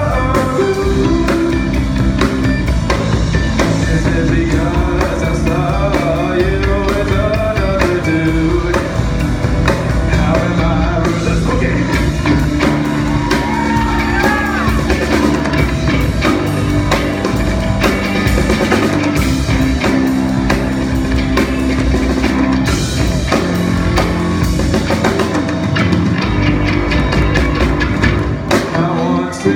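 A live rock band playing a song, with drum kit, electric guitars, bass and keyboard, and a lead singer's voice over them.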